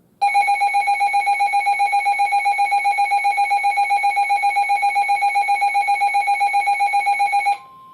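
Weather radio receiver's built-in electronic alert alarm, a loud high beep pulsing about seven times a second for about seven seconds, set off by an incoming alert. It cuts off near the end, and the NOAA Weather Radio 1050 Hz warning alarm tone comes in, steady and much quieter.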